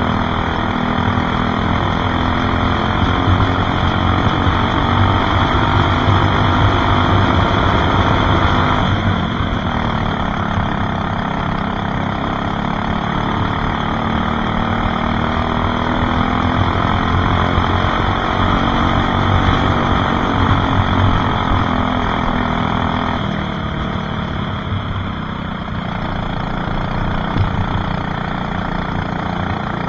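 Racing kart engine running hard at speed, heard from on board the kart. Its note falls about nine seconds in and again about twenty-three seconds in, then climbs back as the kart speeds up again.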